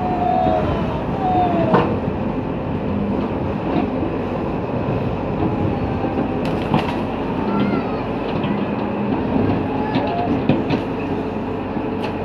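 Hyundai 110 excavator working with its diesel engine running steadily under load, the bucket pressing into the tree's branches. Short high squeals come and go over the engine, with a few sharp cracks.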